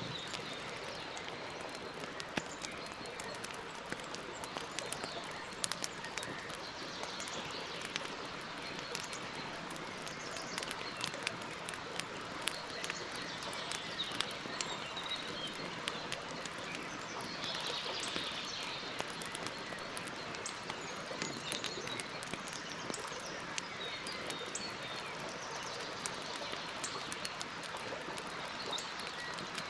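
Campfire crackling, with frequent sharp pops and snaps over a steady hiss. Birds chirp faintly in the background.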